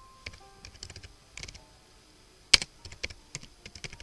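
Typing on a computer keyboard: scattered, irregular key clicks, with one much louder click about two and a half seconds in.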